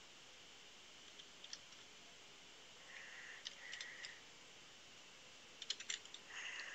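Faint typing on a computer keyboard: a few scattered keystrokes, then a quick run of several near the end, over low hiss.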